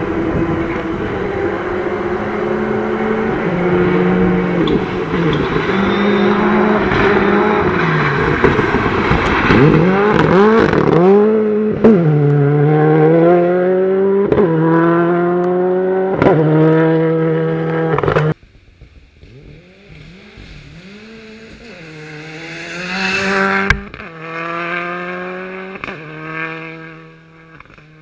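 Mitsubishi Mirage R5 prototype rally car's engine driven hard on a gravel stage, the revs climbing in repeated sweeps with quick upshifts and sharp cracks at each gear change. About two-thirds of the way through it suddenly drops off, and the car is then heard fainter and farther off, accelerating up through the gears again.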